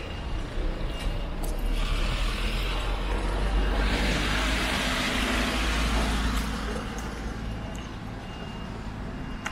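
A van drives past close by on wet paving: its engine runs and its tyres hiss on the wet surface. The sound swells, is loudest around four to six seconds in, and fades by about seven seconds.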